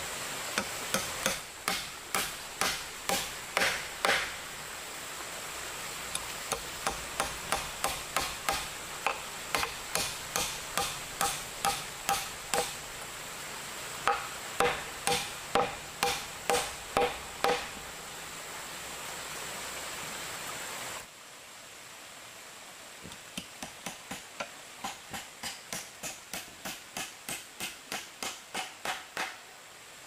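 Repeated blows of a hand tool striking wood, about two a second, in runs of several strikes with short pauses between. Partway through the blows become fainter.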